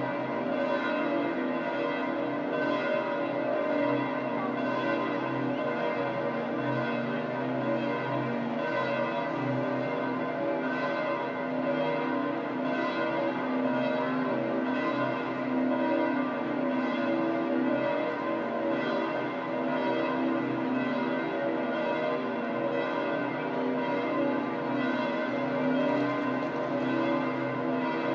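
Church bells of St. Peter's Basilica pealing: several bells ringing together, their overlapping tones hanging on continuously with fresh strokes about once a second.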